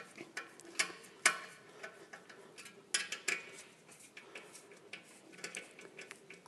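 Hand tool working the mudguard stay screws at a tricycle's rear axle: faint, irregular metallic clicks and taps, as the screws are tightened.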